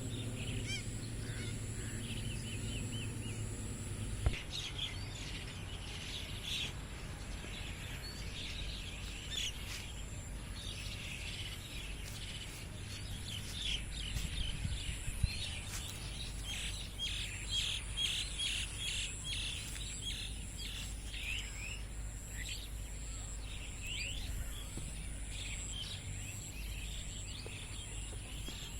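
Many birds chirping in the early morning: short, high calls overlapping one another, busiest from about four seconds in. A steady high-pitched whine and a low hum run underneath.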